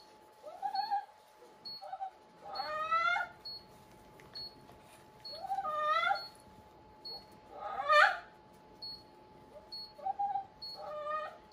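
A dog whining and crying in about five short, wavering cries that rise in pitch, the loudest about eight seconds in: distress at having its leg handled and bandaged.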